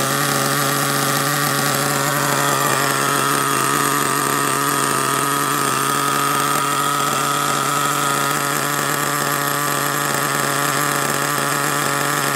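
HPI Trophy 4.6 Truggy's small nitro engine ticking over steadily on its first short run, not yet broken in: an even buzzing idle that holds one pitch.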